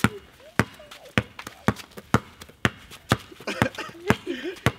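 Basketball being dribbled in a steady rhythm, about two bounces a second, with faint voices briefly in the middle.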